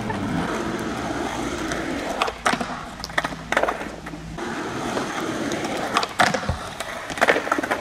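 Skateboard wheels rolling on smooth concrete, with a few sharp clacks of the board's tail popping, the deck hitting and wheels landing, the last ones as the skater pops toward a concrete ledge.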